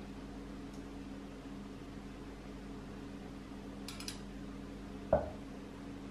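Steady low hum with a few light clicks about four seconds in, then a single knock with a brief ring about a second later.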